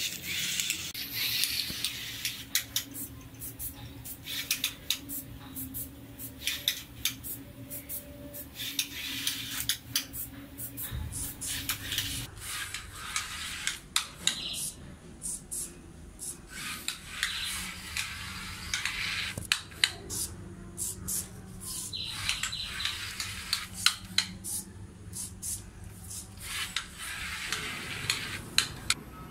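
Small Arduino robot car's plastic-geared DC motors whirring in short spurts as it drives and turns. Its loose chassis and wheels rattle and click on a tiled floor, with many sharp knocks.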